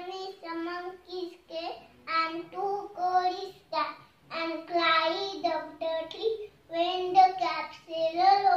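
A young girl singing, her pitched voice running in short phrases with brief pauses between them.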